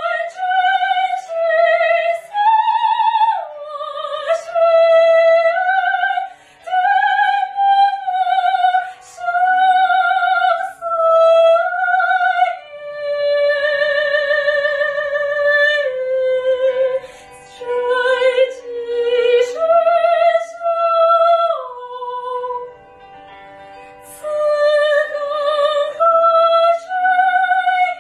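A woman singing solo in a classical, operatic style: high sustained notes with a strong vibrato, in phrases broken by short breaths.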